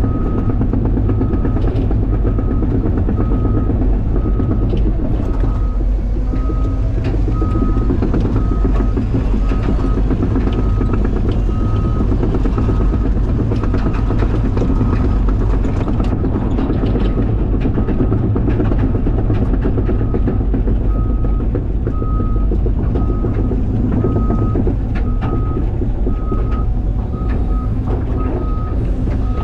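CAT 323 excavator's diesel engine running with a steady low rumble, while a back-up alarm beeps evenly a little faster than once a second, stopping for a few seconds partway through and then starting again. A few short clanks of steel on steel come through.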